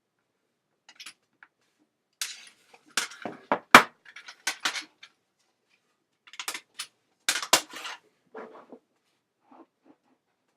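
Small hard objects, metal and plastic, clinking and rattling as they are handled. There are two bursts of clatter, about two and six seconds in, then a few fainter knocks.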